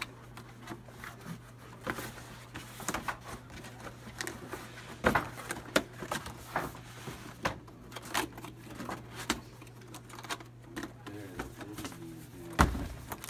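Cardboard box and packing being handled: scraping and rustling with an irregular run of knocks and taps, and a heavier thump near the end. A steady low hum runs underneath.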